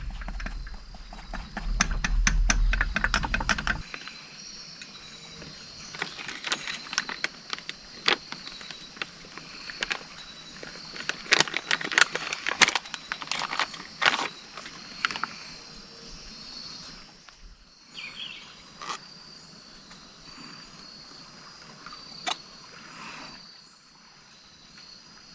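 Irregular sharp clicks and knocks, busiest in the middle, over a steady high insect drone. A low rumble fills the first four seconds.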